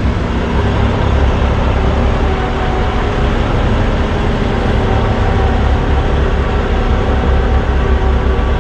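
Peterbilt 579 semi truck's diesel engine running under light load at low speed, a steady low rumble, as the rig swings out wide to make a tight turn.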